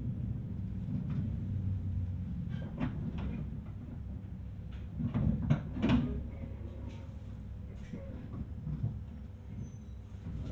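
Inside a JR East 719-series electric train car slowed to a stop: a steady low hum from the car, with scattered knocks and a louder clatter about five to six seconds in.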